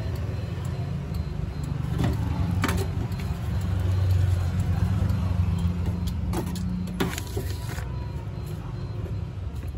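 Toyota Kijang power window motor, freshly fitted with new carbon brushes, running under test from the window switch: a steady hum that cuts off with a click about seven seconds in, with a few clicks before it. A steady low hum lies under it throughout.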